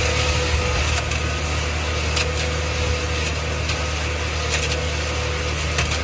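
Portable concrete mixer churning wet concrete in its rotating steel drum over a steady low mechanical drone, with a few short sharp knocks.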